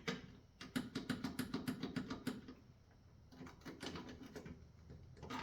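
Rapid irregular clicking and crackling from a jumper cable touched to ground to power a 1985 Suzuki LT300 quad's starter motor directly. The starter never turns over, a sign the starter is dead. The clicking comes in two spells with a short pause between.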